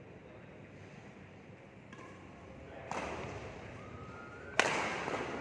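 Badminton racket strings hitting a shuttlecock: one sharp hit about three seconds in, then a much louder, sharp overhead smash crack near the end that rings on in the hall.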